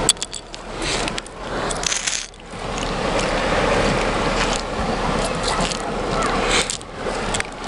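Sea water washing and sloshing along the shore, with scattered sharp clicks.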